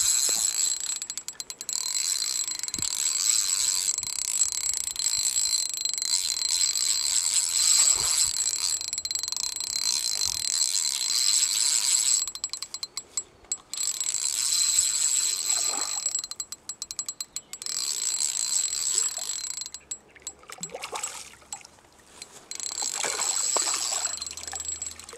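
Fishing reel being cranked to retrieve a lure: a steady high whir that stops and starts several times with short pauses. Near the end there is splashing at the water's surface.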